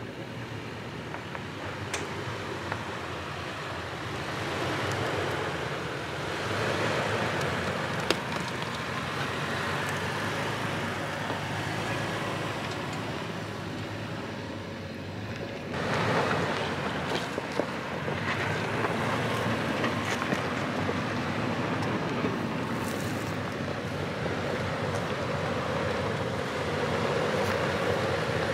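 Toyota 4Runner driving slowly along a rough dirt and rock trail: engine running low with tyre and trail noise, and a few sharp clicks as stones or debris are hit.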